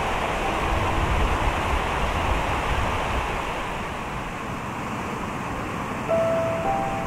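Steady rushing of a rocky mountain stream, with wind gusting on the microphone in the first couple of seconds. About six seconds in, a short clear tone sounds over the water.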